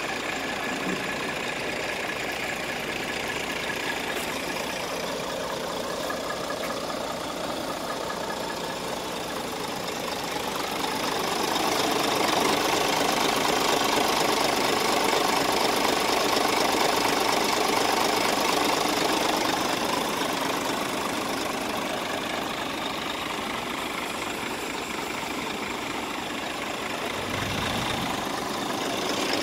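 Scania R410 tractor unit's diesel engine idling steadily with a diesel clatter, louder for several seconds in the middle.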